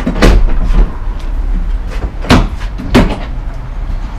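Dull knocks and clunks of a motorcycle being shifted by hand inside an enclosed cargo trailer as it is worked into a wheel-pin restraint. There are four strikes over about three seconds, the last two the sharpest, over a steady low rumble.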